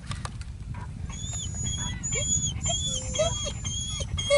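A dog whining over and over in short, high-pitched whines, starting about a second in: an excited dog eager to get going.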